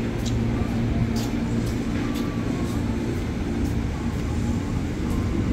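JR 205-series electric commuter train pulling out of the platform, a steady hum of motors and running gear with light clicks from the wheels scattered throughout.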